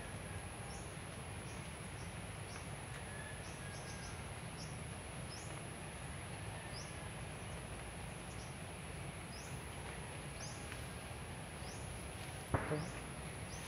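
Outdoor insect chorus: a steady high-pitched drone with short rising chirps repeating every half second to a second, over a low rumble. A short knock near the end.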